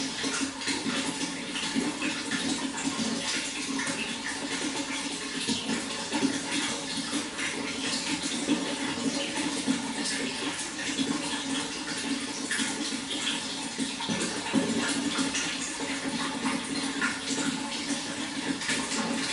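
Running water flowing and splashing steadily, a continuous trickling rush with many small splashes.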